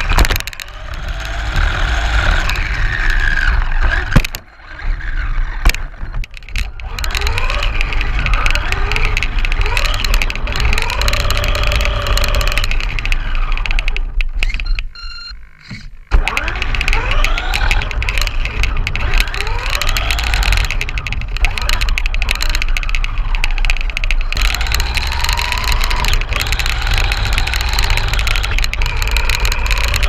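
Radio-controlled car's motor whining as the car speeds up again and again in rising glides, with tyre and chassis rattle on asphalt, heard from a camera mounted on the car. The sound drops away briefly twice, about four seconds in and around the middle.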